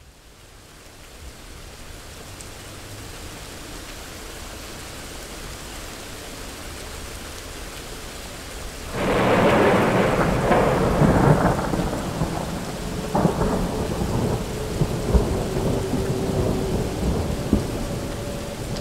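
Steady rain swelling up from faint, then a sudden loud thunderclap about nine seconds in, followed by rolling thunder rumble over the rain.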